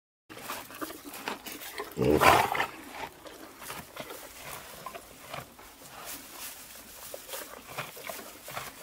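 A short, noisy animal sound about two seconds in, over a light outdoor background with scattered small clicks.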